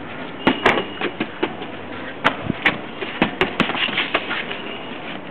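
Irregular sharp taps and knocks, about ten of them spread unevenly, over a steady hiss.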